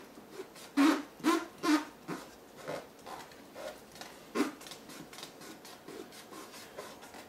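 Fingers rubbing a strip of tape down onto the FEP film stretched in a resin-printer vat: a series of short rubbing strokes, the loudest three close together about a second in, then fainter ones.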